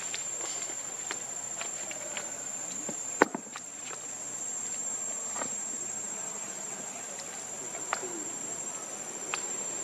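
Insects calling in one steady high pitch without a break. Scattered light clicks sound through it, with one sharp click about three seconds in.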